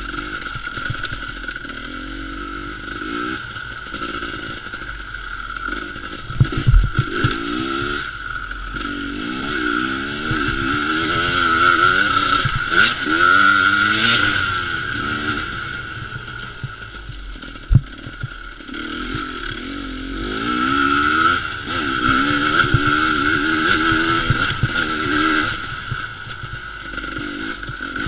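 Enduro dirt bike engine heard from on board, revving up and down over and over as it rides rough trail. There are two sharp knocks, about 7 s and 18 s in.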